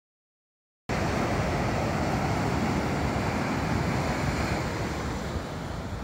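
Ocean surf breaking and washing up a sand beach, a steady rush of water with wind rumbling on the microphone. It cuts in suddenly from silence about a second in.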